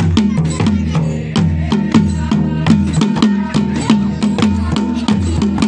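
A Pahadi dhol, the two-headed barrel drum slung from the shoulder, beaten in a fast, even rhythm for Kumaoni folk dance music. Each stroke is a sharp crack over a deep ringing drum tone.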